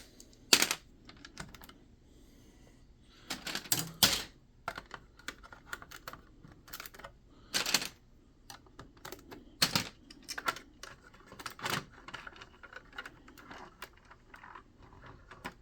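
Plastic Lego bricks being handled and pressed together: irregular sharp clicks and snaps, a few louder ones among many small taps.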